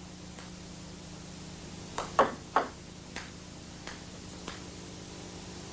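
Celluloid table tennis ball clicking off the bat and table during a serve: a faint tap early, a loud cluster of sharp hits about two seconds in, then a few fainter bounces spaced over the next two seconds. A steady low hum runs underneath.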